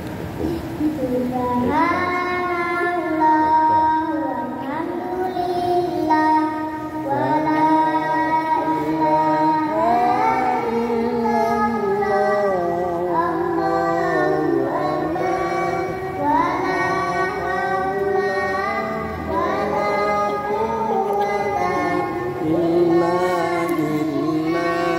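A young boy singing a pujian, the devotional praise chant sung before the obligatory prayer, into a microphone in long ornamented phrases with held notes that slide up and down.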